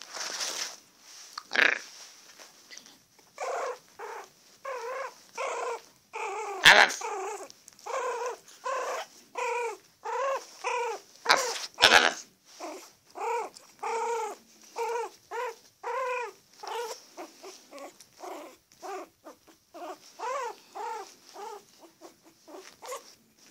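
Young Yorkshire terrier puppy whimpering in a long string of short rising-and-falling cries, about one and a half a second. A few sharp knocks break in, the loudest about 7 and 12 seconds in.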